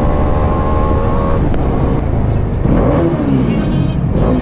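Bajaj Dominar 400 motorcycle's single-cylinder engine running with a steady low rumble. A steady higher droning tone stops about a second and a half in, and from about halfway the engine note swings up and down as it is revved.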